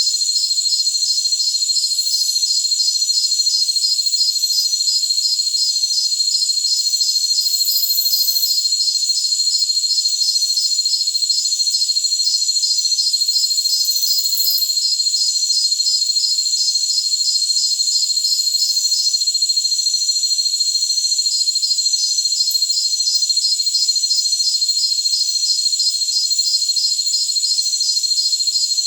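A dense chorus of jungle crickets: a continuous high-pitched trill under a rapid, even pulse of chirps that stops for about two seconds past the middle, then resumes.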